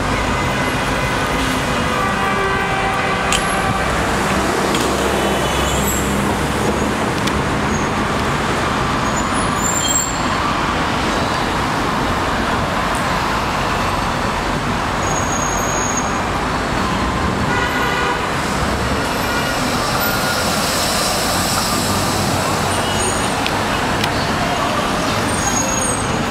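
Steady city traffic noise from cars and buses passing on a busy road, with brief horn toots near the start and about two-thirds of the way through.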